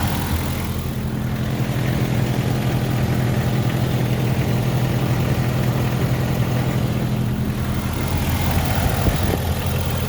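1998 Jeep Cherokee XJ engine idling steadily, cold after sitting a couple of days, with a little lifter tick that the owner takes as normal.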